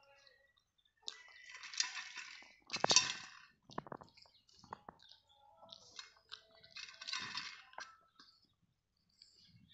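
Puppy lapping milk from a stainless steel bowl, with the metal bowl clinking and scraping on the concrete floor in irregular bursts. The sharpest clatter of the bowl comes about three seconds in.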